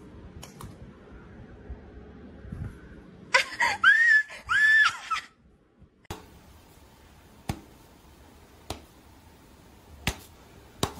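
Two loud, high-pitched cries, each rising and then falling, about three and a half seconds in. Later come sharp single clicks, roughly one every second or so.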